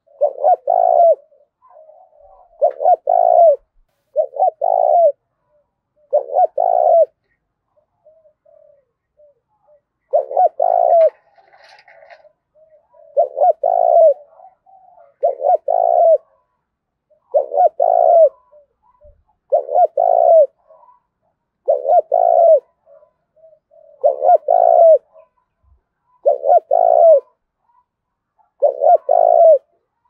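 Spotted dove giving its intense challenge coo, a rapid, aggressive form of its call. The mid-pitched cooing phrases repeat about every two seconds, with one longer pause about a third of the way through.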